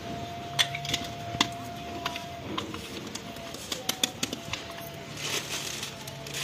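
Scattered sharp clicks and clinks from a steel flask being handled and its lid worked, with a faint steady tone for the first couple of seconds.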